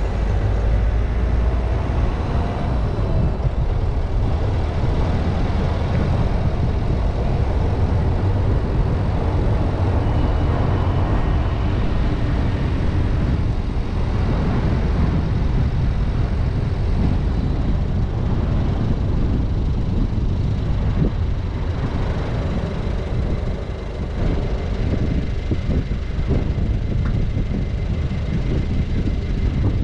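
Car driving steadily: continuous road and engine noise with a deep, even rumble.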